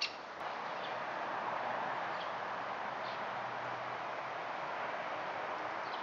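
Steady outdoor background hiss with a few faint, short bird chirps scattered through it. There is a brief click at the very start.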